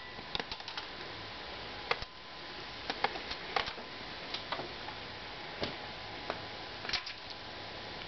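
Irregular light clicks and taps, about two a second and unevenly spaced, over a steady hiss.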